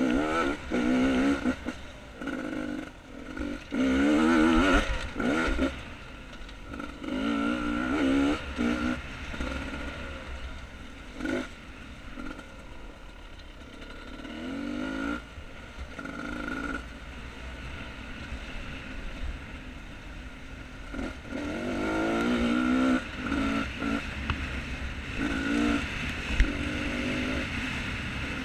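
Beta 250 RR two-stroke dirt bike engine revving up and down in repeated bursts as the throttle is worked on and off, with lower-revving stretches between. A single sharp knock near the end.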